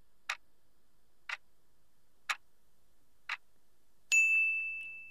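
Quiz countdown timer sound effect: four clock-like ticks, one a second, then a ringing chime about four seconds in that fades slowly as the answer time runs out.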